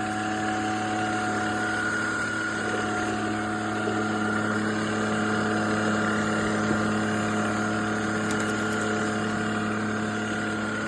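CHEBIO V18 cordless stick vacuum cleaner running steadily: a constant motor hum with a thin high whine above it.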